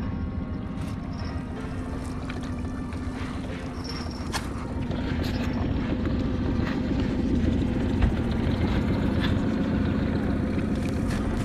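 Small outboard motor running steadily at a constant speed as the inflatable boat moves over the river, with water washing along the hull.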